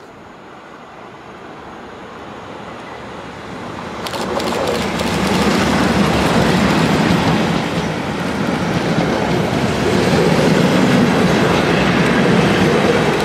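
Two Class 37 diesel locomotives with a train of test coaches passing close by. The sound builds as the train approaches and turns loud about four seconds in, with the leading locomotive's English Electric engine and clicking wheels on the rails. It dips as the coaches pass and swells again as the rear locomotive goes by near the end.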